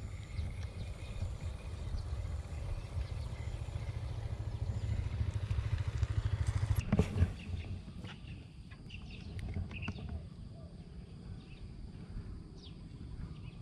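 Wind buffeting an open-air microphone, a low, uneven rumble that swells and then drops after a sharp knock about seven seconds in. After that come faint scattered ticks and a short rising chirp.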